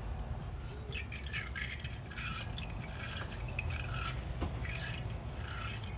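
Wire battery terminal brush scrubbing the lead battery terminals clean of corrosion: a series of short rasping strokes, roughly two a second.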